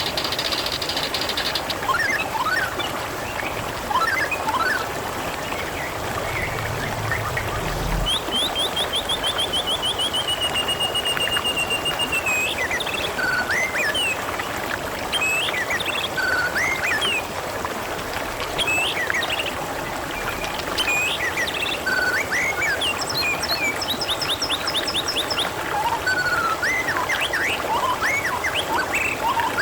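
Water trickling and gurgling steadily, with small birds chirping over it. A fast, rattling trill of rapid notes comes about a third of the way in, and short scattered chirps follow.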